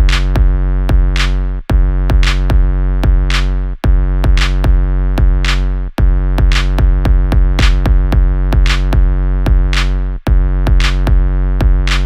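Electronic music with a drum machine beat over a steady bass and chord, dropping out briefly every couple of seconds.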